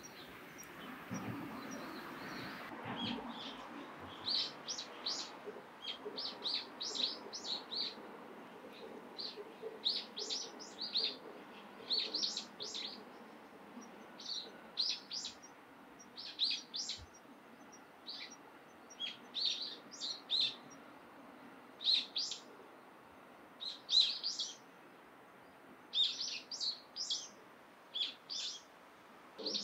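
Small birds chirping, quick runs of short high chirps with brief pauses between, starting a few seconds in and going on throughout.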